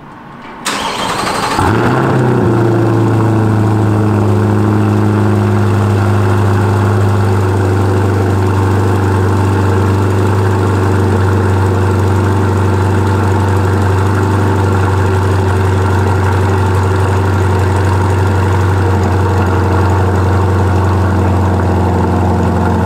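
2022 Chevrolet Corvette C8's 6.2 L V8, fitted with a Paragon Performance track exhaust, cranks and fires about a second and a half in with a brief flare, then idles steadily and loudly through the straight-through track exhaust.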